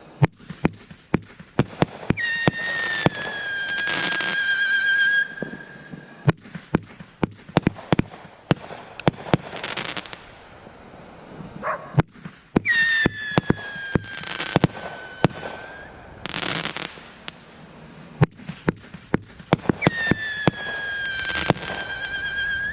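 Fireworks going off: a steady run of sharp pops and bangs, with three long whistles that each dip slightly in pitch and hold for about three seconds, about two seconds in, past the middle and near the end. Short hissing surges come in between.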